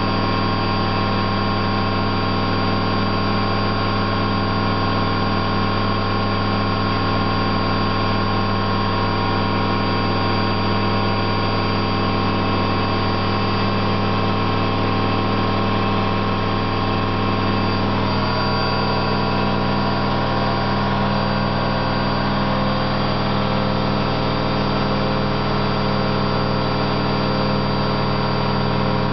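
Candy GO4 127 DF washing machine spinning, its worn drum bearings giving a loud, steady rumble with several steady tones over the motor. The bearings are not badly gone, just loud. The pitch shifts slightly about two thirds of the way through.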